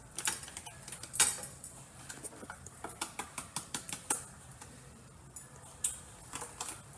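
Metal spoon clinking and scraping against a frying pan as cooked ground beef is stirred: a quick run of taps through the first four seconds, and a few more about six seconds in.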